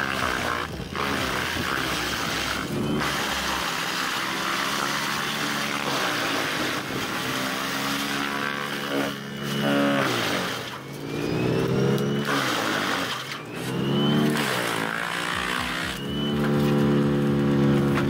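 Claas Xerion 5000 tractor driving a TP 400 wood chipper through whole tree trunks: a steady rushing noise of wood being chipped and blown out, over the tractor's engine. In the second half the engine note sags and recovers several times as the chipper takes the load of the trunk.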